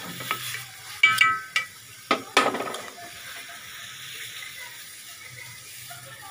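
Wooden spoon stirring chicken stock at a rolling boil in a steel pot, knocking against the pot several times between about one and two and a half seconds in, each knock ringing briefly. After that the boiling stock bubbles steadily.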